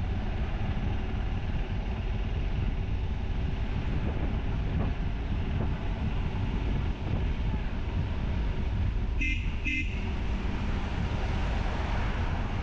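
Steady low road and engine noise from riding a motorcycle along a highway. About nine seconds in, a vehicle horn gives two short toots.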